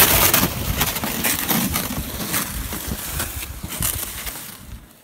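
Footsteps crunching through snow with a loaded plastic sled dragged behind, the irregular crunches fading out near the end.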